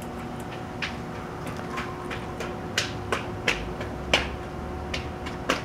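Irregular sharp clicks and ticks, about ten of them, the loudest about four seconds in, over a faint steady hum.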